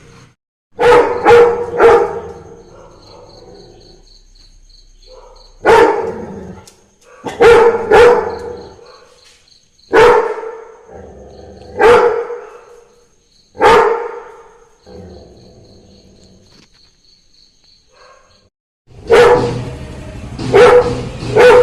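Labrador barking: about a dozen deep barks, some single and some in quick runs of two or three, with pauses of a few seconds between. It is barking at the sound of Christmas carollers near the house. Near the end the background turns noisier while the barking goes on.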